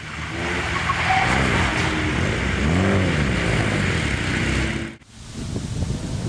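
Mitsubishi Lancer Evo VIII rally car's turbocharged four-cylinder engine revving, its pitch rising and falling, with a high peak about three seconds in. About five seconds in the sound cuts off abruptly and the car is heard again driving toward the microphone, rougher and noisier.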